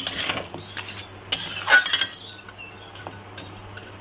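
A cooking utensil clinking and scraping against a kadai while the chhana and date-palm jaggery are stirred over a low flame. There is a clink right at the start and a louder scrape and clink a little under two seconds in, then it goes quiet.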